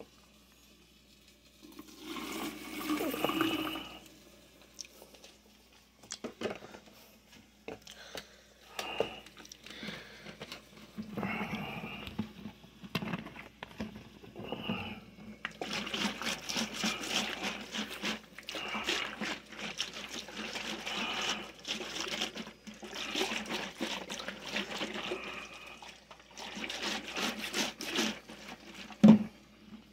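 Liquid running and pouring in spells, the longest about halfway through, with small clicks over it and one sharp knock near the end.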